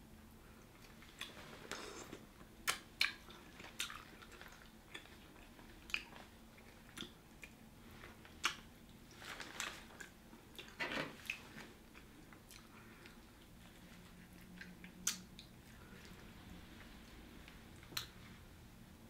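Someone eating sauce-coated seafood boil: crab and shrimp shells cracked and pulled apart by hand, with chewing and biting. The sharp cracks and crunches are bunched in the first half and thin out later.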